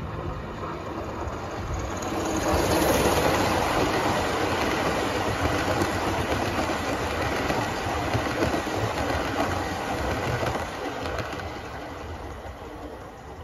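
Gauge 1 live-steam model of an LNER B1 locomotive (Aster) hauling a train of coaches past: the running sound of the engine and the wheels on the track, loudest about three seconds in as the locomotive goes by, then fading near the end as the train draws away.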